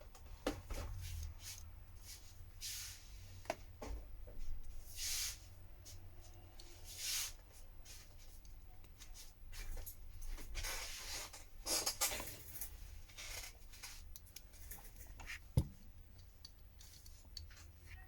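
Quiet handling sounds of a smartphone being worked on by hand while its SIM card tray is fitted: scattered small clicks and taps, with several short scraping and rubbing noises.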